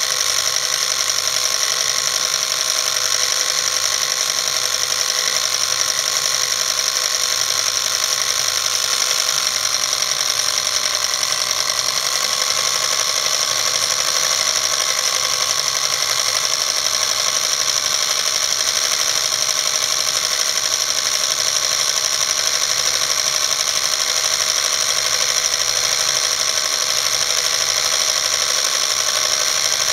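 Film projector running steadily: a constant mechanical whirr and clatter from its motor and film mechanism.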